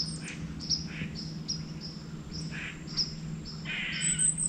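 A white-tailed deer blowing, a short whooshing snort of alarm, loudest about four seconds in, which the hunter takes for a buck rather than a doe. Under it, a high chirping repeats about twice a second.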